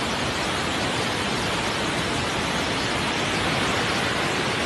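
Floodwater rushing in a fast torrent, a steady even noise with no breaks.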